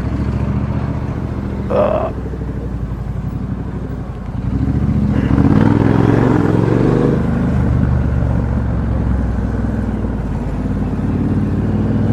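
Triumph Bonneville T120's 1200 cc parallel-twin engine running through a Customer aftermarket straight-cut exhaust, heard from the rider's helmet. It runs at low revs, then opens up about four seconds in, getting louder and climbing in pitch, and keeps pulling at the higher level.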